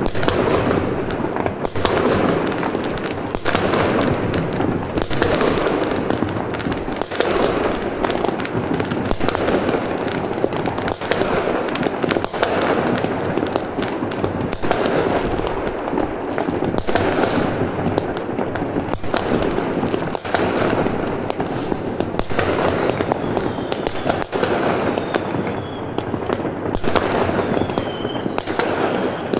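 Fireworks and firecrackers going off all at once: a dense, continuous barrage of overlapping bangs and crackling, with a few faint whistles near the end.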